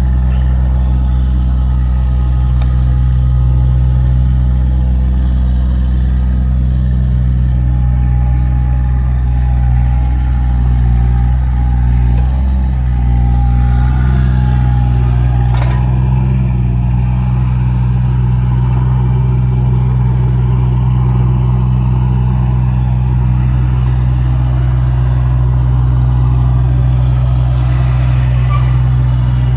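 Volvo EC20E mini excavator's diesel engine running steadily. The engine note shifts briefly about twelve seconds in, and a sharp click comes a few seconds later.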